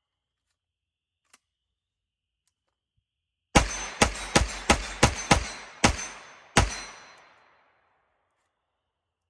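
Grand Power Stribog 9mm pistol-caliber carbine, direct blowback and fitted with an HB Industries short-stroke buffer, firing eight quick shots at an uneven pace over about three seconds. Each shot is a sharp crack with an echo trailing after it. The gun is cycling without a stoppage. A faint click comes about a second in, before the shooting.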